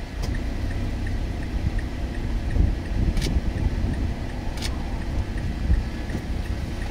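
Car running, a steady low rumble heard from inside the cabin, with a faint regular ticking about three times a second and two short sharp clicks, about three and four and a half seconds in.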